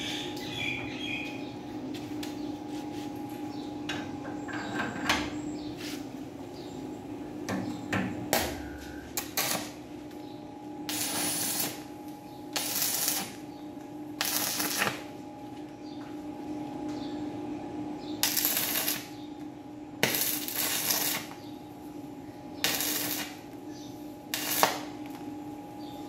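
Stick (arc) welding: short tack welds on a steel door, heard as about seven bursts of arc crackle, each up to about a second long, over a steady hum. A few light clicks come before the welding starts.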